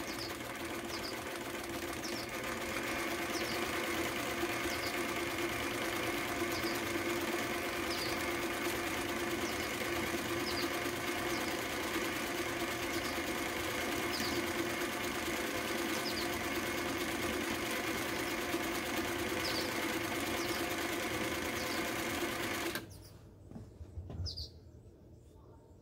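Singer 319W zigzag sewing machine running steadily as it stitches a decorative ball-stitch pattern, stopping suddenly about 23 seconds in. Birds chirp faintly now and then.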